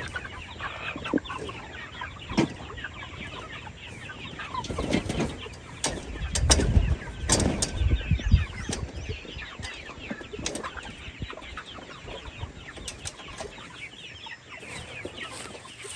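Chickens clucking, many short calls overlapping. A run of louder knocks and low rumbling comes about six to eight seconds in.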